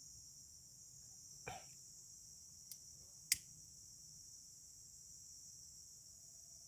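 Steady, faint high-pitched chorus of insects such as crickets, with a few sharp clicks breaking through, the loudest a little over three seconds in.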